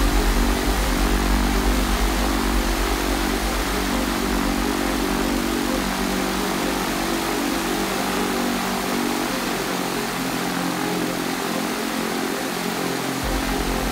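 Piper PA-28-140 Cherokee's four-cylinder Lycoming engine and propeller running steadily on the ground. The deep low rumble eases for a few seconds near the end, then comes back.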